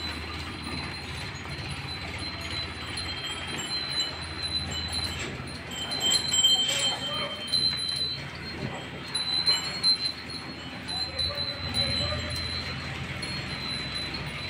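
Small metal cattle bells tinkling on and off in high, thin notes as the tethered cows move, with a few knocks around the middle.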